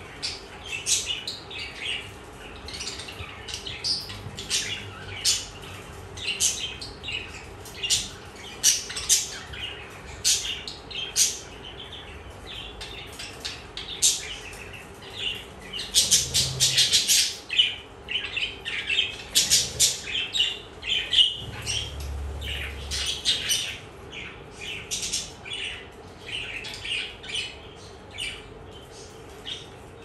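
Budgerigars chattering with quick chirps and squawks, busiest about halfway through.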